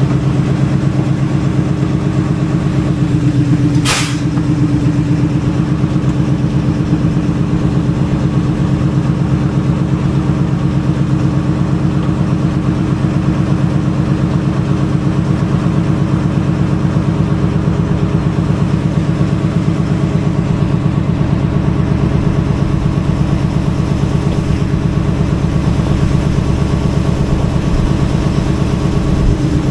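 Diesel locomotive engine running steadily at an unchanging speed, with a brief sharp noise about four seconds in.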